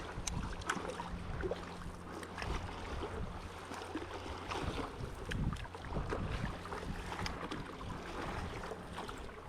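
Choppy lake water slapping and splashing against a paddleboard in irregular small splashes, over a steady low rumble of wind on the microphone.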